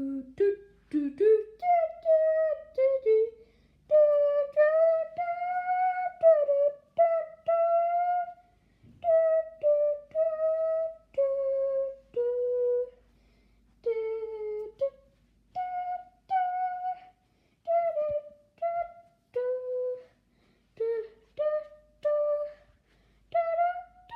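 A slow melody on a flute-like wind instrument: separate held notes, each lasting up to about a second, with short silent gaps between them.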